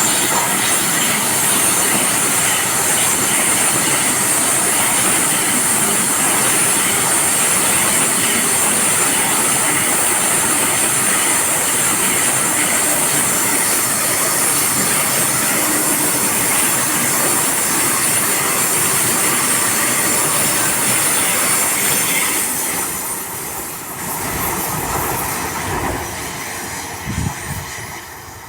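Vande Bharat Express electric multiple-unit train passing: a steady loud rush of wheels and carriages with a high hiss over it, fading away after about 22 seconds.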